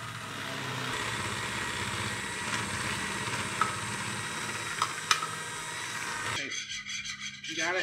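Electric hand mixer running steadily, its beaters whirring through thick cake batter in a ceramic bowl, with a few sharp clicks as the beaters knock the bowl.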